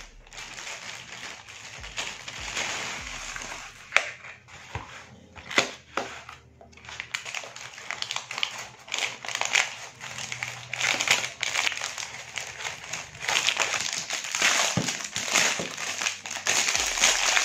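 Plastic mailer pouch, cardboard box and clear plastic bag crinkling and rustling as they are opened by hand, with a few sharp cracks. The crinkling gets denser and louder toward the end as the plastic bag is worked open.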